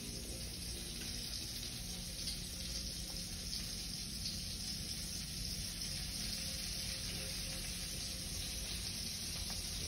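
Hot cooking oil sizzling steadily in a pan, an even hiss with faint crackles.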